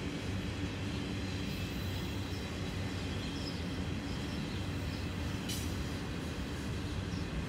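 Freight train of autorack cars rolling past on the rails: a steady rumble of steel wheels and cars, with one brief sharp click about two-thirds of the way through.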